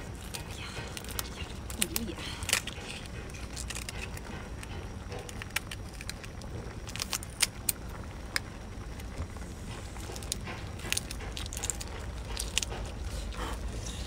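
Scissors snipping and cracking through the shell of a cooked mantis shrimp: scattered sharp crunches and clicks over a steady low rumble.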